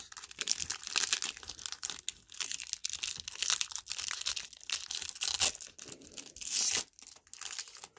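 Crinkling and tearing of a 2020 Topps baseball card pack's wrapper, mixed with the rustle of the cards being handled. There are louder crackling stretches about three and a half and six and a half seconds in.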